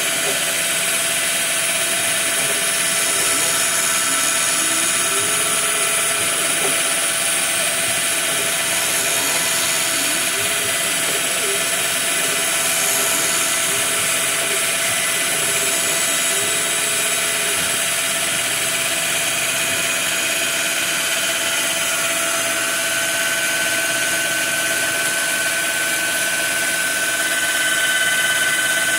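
Homemade CNC router's spindle running with a steady whine while its end mill cuts a pocket in a wooden block. Under it, the machine's axis motors give short rising and falling tones as the cutter moves back and forth.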